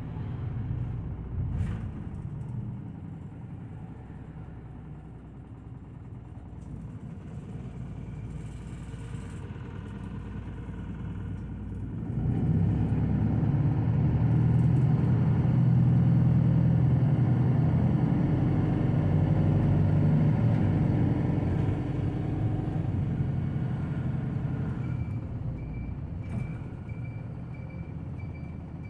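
Engine and road noise of a city route bus heard from inside while driving. The engine grows louder and works harder from about twelve seconds in, then eases off toward the end.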